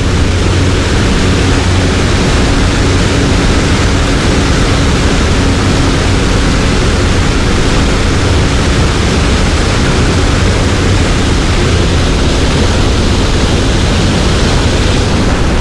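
Fast-moving spring-fed river water rushing past close by: a loud, steady, even rush with a heavy low end.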